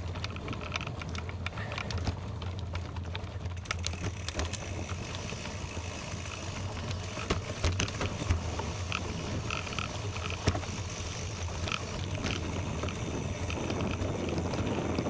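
Bicycle riding on a gravel road: tyres crunching over loose gravel with many scattered clicks and rattles over a steady low rumble.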